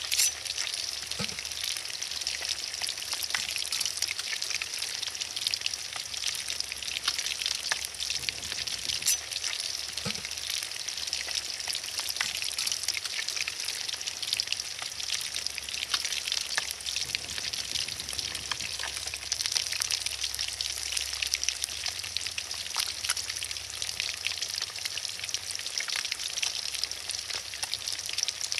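Fish frying in hot oil: a steady sizzle with scattered sharp pops and crackles.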